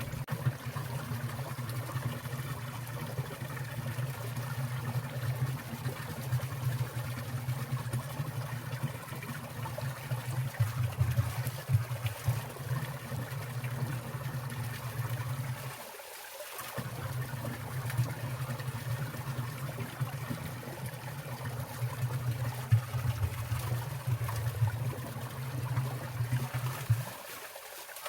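Water in a winter mountain stream trickling and splashing steadily, with many small splashes. The low rumble under the trickle cuts out briefly twice.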